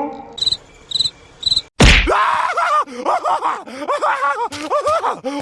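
Cartoon cricket-chirp sound effect, three short chirps, then a sudden loud whack about two seconds in. After the whack comes a run of wavering, up-and-down pitched vocal-like sounds.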